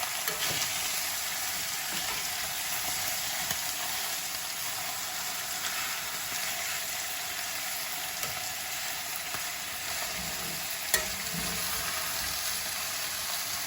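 Brisket fat trimmings frying in a 12-inch cast iron skillet, a steady sizzle as the fat renders out. One sharp pop of grease comes about eleven seconds in.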